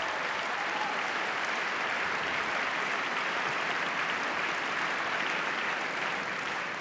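A large audience applauding steadily, starting to die down near the end.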